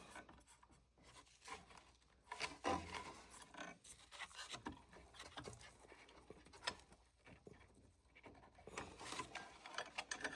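Quiet, irregular scraping, rubbing and small knocks of a treadmill's motor controller board being worked free from its mounting in a tight space.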